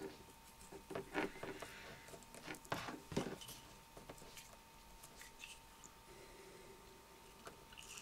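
Faint handling sounds: a few light clicks and rustles, mostly in the first half, as plastic heat-shrink tubing is picked up off a table and slid over the end of a coax cable.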